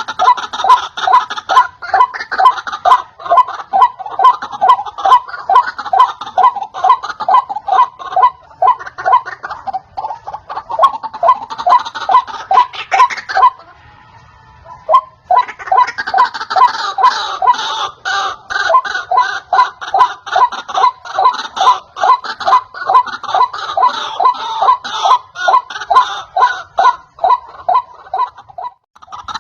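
White-breasted waterhen calling: a long run of harsh, evenly repeated notes, about three a second, breaking off for about two seconds near the middle and then resuming.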